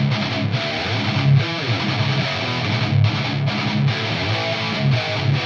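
Electric guitar riff played through a Mesa/Boogie Dual Rectifier tube amp, a steady stream of notes broken by several brief stops. The amp's preamp runs an RCA NOS 12AX7 at first, then a JJ ECC83S in the V1 slot from about four seconds in.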